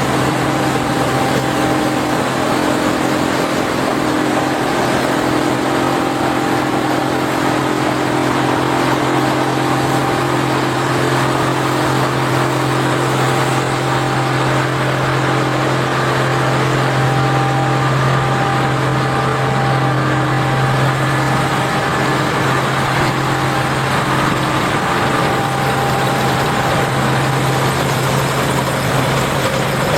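Case IH Axial-Flow combine running steadily while harvesting corn, a continuous low drone with faint steady whining tones above it.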